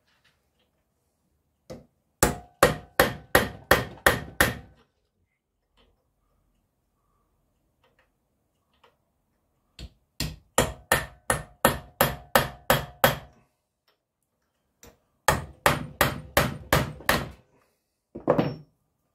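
Ball-pein hammer driving a steel punch against the metal of an ABS pump unit, in three quick runs of about four blows a second with a metallic ring, and a short pair of blows near the end: knocking back the crimped tabs that hold the pump motor on.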